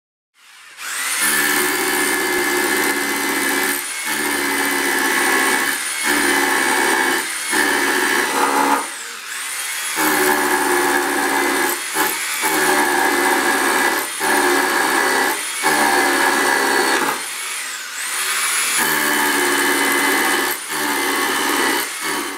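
Yato YT-82120 SDS Plus rotary hammer with an 8 mm bit drilling into a concrete block. It runs in stretches, cutting out briefly every second or two with longer pauses twice, and a high whine rises each time it spins back up.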